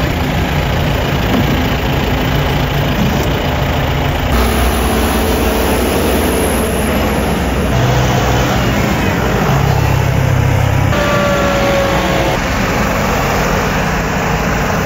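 Diesel farm tractor engines running steadily, with a tractor driving past; the sound changes abruptly about four seconds in and again near eleven seconds.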